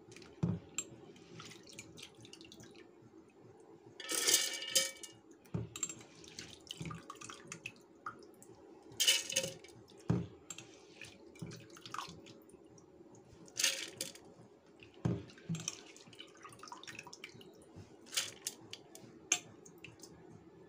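Wet soaked rice and lentils being added in batches to a steel mixer-grinder jar: a few louder wet clatters against the steel, with smaller knocks and drips between, over a faint steady hum.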